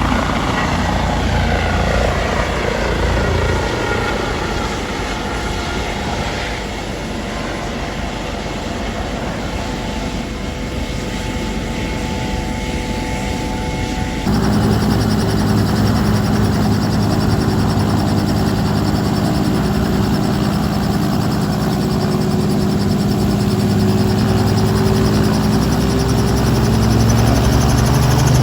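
Helicopter rotor and turbine running. In the first half its tones fall in pitch. About halfway through it cuts abruptly to a louder, lower, steady helicopter sound that rises slightly near the end.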